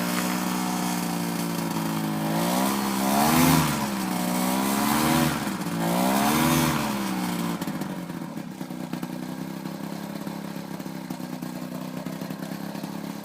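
Paramotor engine running steadily, its throttle blipped three times in quick succession so the pitch rises and falls back each time, then settling to a quieter idle.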